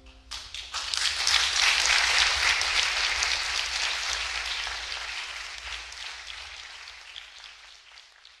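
Audience applause: a few scattered claps, then dense clapping that fills in within about a second and gradually fades away.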